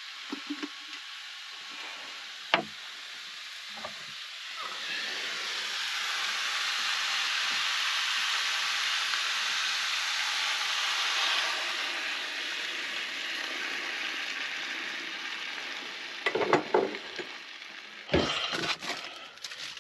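Orange juice poured into a hot cast iron skillet of pork cubes, onions and garlic: a sizzle starts about four seconds in, swells to its loudest, then slowly dies down. A sharp click comes shortly before it, and a few knocks near the end.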